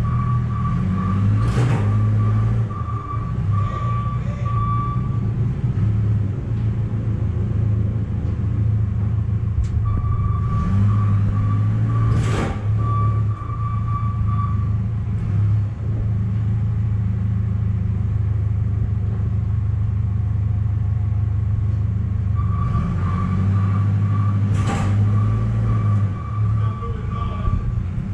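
A machine running with a steady low hum. A high steady tone comes and goes about every twelve seconds, with a sharp click in each cycle.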